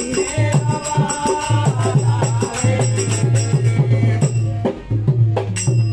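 Loud folk-style dance music with a steady heavy beat and rattling percussion.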